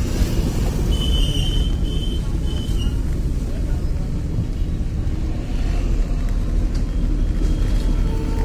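Car engine and road rumble heard from inside the cabin as the car creeps through street traffic. About a second in come three short high-pitched beeps.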